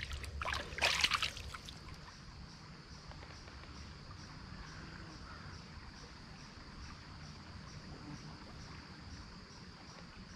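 Water splashing a few times during the first second or so, then the faint, steady trickle of a small shallow stream.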